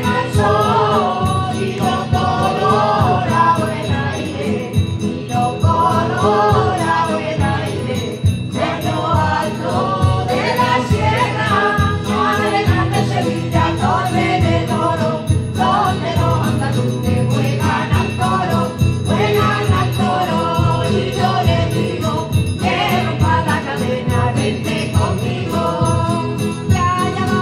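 Traditional Spanish ronda de boda (wedding serenade) from Candeleda: several voices sing together in phrases with short breaks between lines, over strummed guitars and a smaller plucked string instrument.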